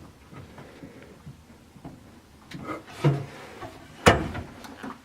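Light clicks and handling noises, with one sharp knock a little after four seconds in.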